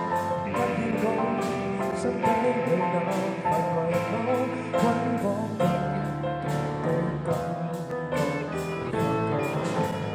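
Live rock band playing: electric guitar, electric bass and drum kit with a steady beat of cymbal strokes, and a singer's voice over it.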